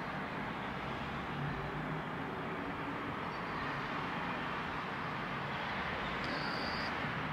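Steady distant city traffic noise heard from high above the streets, a continuous even hum of cars. A faint, brief high whistle is heard about six seconds in.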